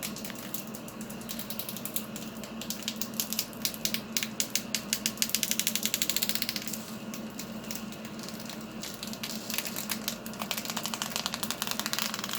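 Runs of rapid small mechanical clicks, fastest and loudest around the middle, over a faint steady hum.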